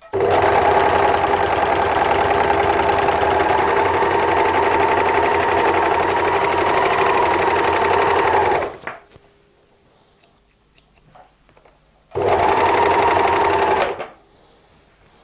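W6 N454D overlocker running steadily at speed for about nine seconds, sewing a gathering seam through single-layer jersey with differential feed at maximum, then stopping. After a few seconds of faint clicks it runs again for about two seconds and stops.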